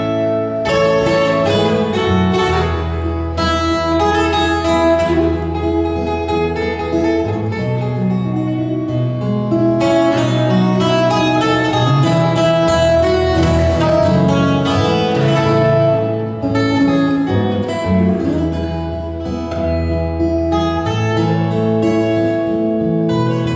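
Acoustic guitar played through a PA, a steady instrumental passage of a folk song: picked notes ringing over deep bass notes that change every second or two.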